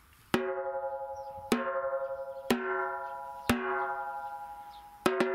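Handmade 13x7-inch ash-shell snare drum tuned high, struck four single times about a second apart, each hit ringing out with a clear pitch and slowly dying away. Near the end a fast, even run of strokes begins.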